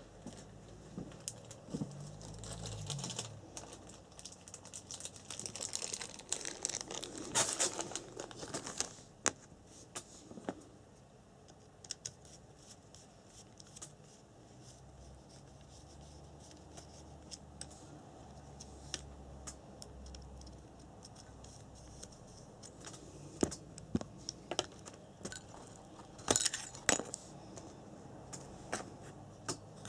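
Handling noises from an RC buggy's gearbox: scattered small clicks and light rattles of plastic and metal parts, with rustling, as the brushed electric motor is unscrewed and pulled out of its mount. The busiest clicking and rustling comes a few seconds in and again near the end.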